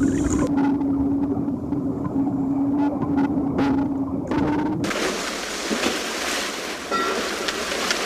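A steady, muffled low hum of the kind heard underwater. About five seconds in it cuts abruptly to open-air sound of wind and waves on the water.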